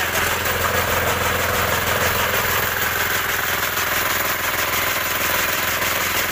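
Small petrol engine running steadily under load, driving a fodder chaff-cutter (toka machine).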